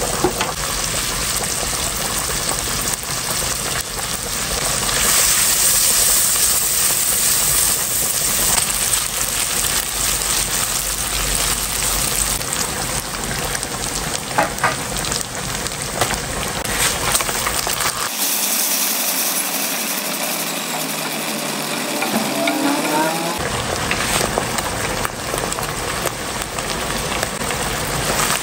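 Chopped bacon and onion sizzling as they fry in oil in a pot, with a few clicks of a spatula. For a few seconds past the middle the sound thins out, then the frying sizzle returns.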